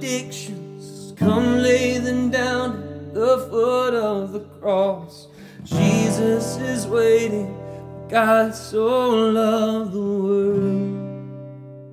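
A man singing a worship song to his own strummed acoustic guitar. Near the end the last chord rings on and fades.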